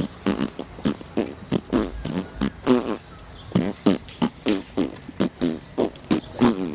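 A person making rhythmic beatbox-style mouth noises: short voiced pops and sharp clicks in quick succession, roughly two to three a second, with a short pause about three seconds in.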